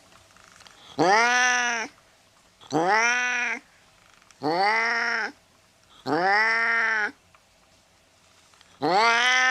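Domestic cat meowing: five long meows in a row, each rising in pitch at the start and then held for about a second, spaced roughly every one and a half to two seconds, the last beginning near the end.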